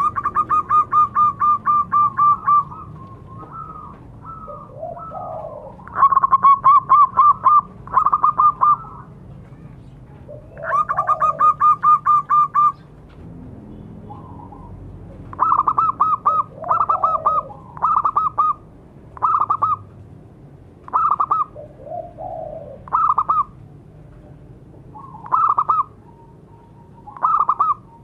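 Zebra dove (perkutut) cooing in rapid trilled phrases. Several long runs of quick notes in the first half give way to short bursts every second or so. Softer, lower coos sound in between.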